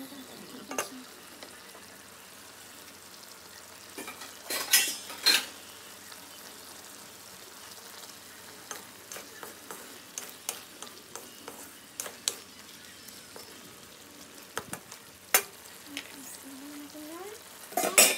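Chicken pieces and bell peppers sizzling in a pan while a wooden spatula stirs them, scraping against the pan. The loudest scrapes come about four to five seconds in and again near the end.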